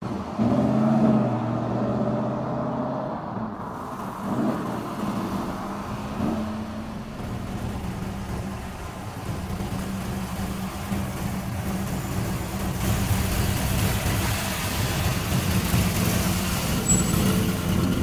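A car's engine running as the car drives through a parking garage. It starts as a steady low hum, and the engine and road noise grow louder from about two-thirds of the way through as the car comes closer.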